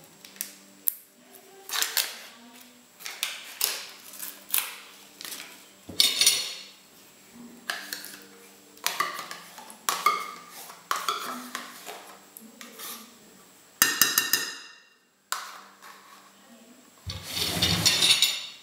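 A metal whisk stirring cake batter in a bowl, knocking and clinking against the bowl's sides in irregular strokes, with a few ringing clinks and a longer scraping stir near the end.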